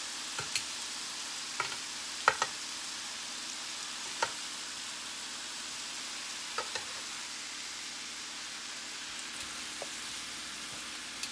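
Ribeye steaks with pats of butter sizzling on a ceramic electric grill plate, a steady hiss. Metal tongs click against the grill plate and meat several times, sharpest about two seconds in.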